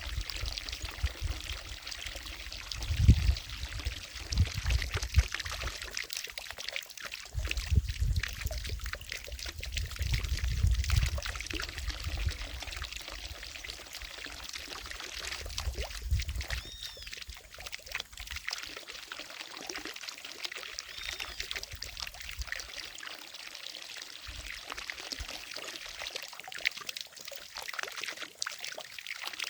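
Water falling from a fountain into a lake, a steady pouring, splashing hiss. Bursts of low rumble come and go through the first half, and a few short chirps sound in the second half.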